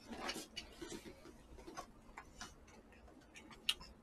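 Faint, scattered light clicks and taps of metal chopsticks against plastic takeout trays while picking up jokbal, with one sharper click near the end.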